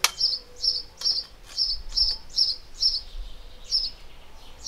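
A small bird chirping over and over, short high chirps about two a second, with a pause near the end. A single sharp click comes right at the start.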